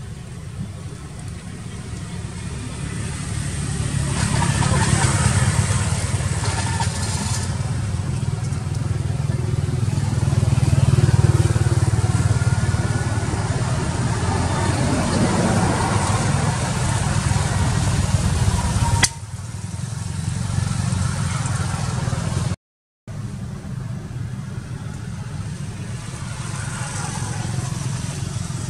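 Steady low rumble of motor traffic, with faint voices in the background. The rumble breaks off suddenly about two-thirds of the way through and comes back quieter, with a moment of total silence a few seconds later.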